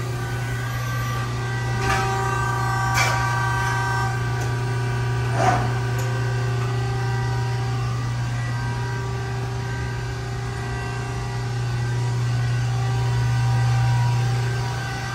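Ermak Power Bend Falcon CNC hydraulic press brake running idle, its hydraulic pump motor giving a steady low hum with higher steady tones over it that grows louder near the end. A few faint clicks come in the first half.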